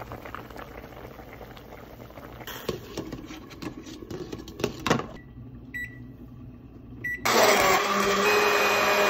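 Soup bubbling at a boil in a steel pot, with clinks as a glass lid is set on, then a few short beeps. About seven seconds in, a Cuisinart immersion blender starts up and runs loud and steady, puréeing the soup in the pot.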